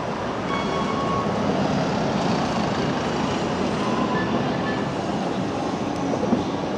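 Electric multiple-unit trains moving through the station below, a Class 315 pulling out as a London Overground train pulls in: a steady running noise of wheels on rails.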